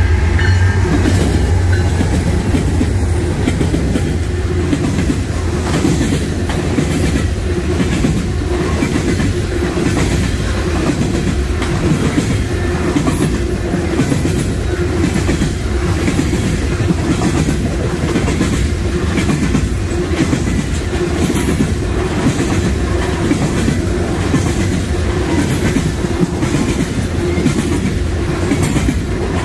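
Freight train rolling past, its car wheels clacking in a steady rhythm over the rail joints above a loud low running noise.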